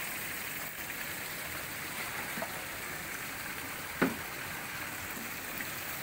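Steady splashing of a small stream of water pouring from a bamboo spout into a pond. A single sharp knock about four seconds in.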